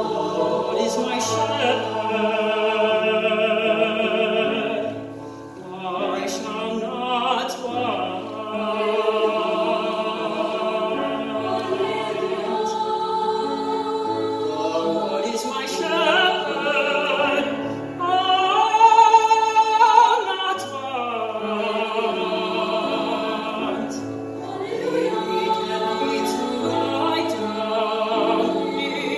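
A male soloist singing a slow sacred choral piece with vibrato while a mixed choir sustains chords beneath him, the music swelling to its loudest about two-thirds of the way through.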